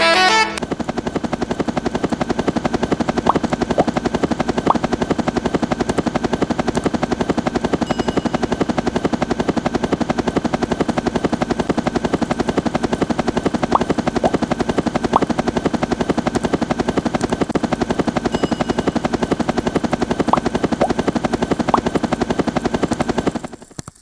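Two small DC gear motors spinning a plastic toy helicopter rotor: a steady buzz with a fast, even rattle from the gears. It stops shortly before the end.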